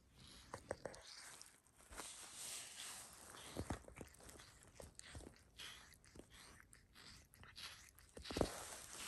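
Sphynx cat grooming itself, its tongue licking over its bare skin in quick, irregular wet strokes and small clicks.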